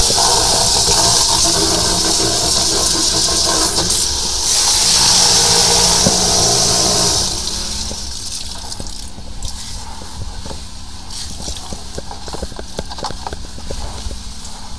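High-pressure drain jetter clearing a clogged sewer drain: water spraying and rushing in the pipe with a steady hiss. About seven seconds in the spray drops away, leaving a quieter rushing and scattered clicks as the jetting hose is handled.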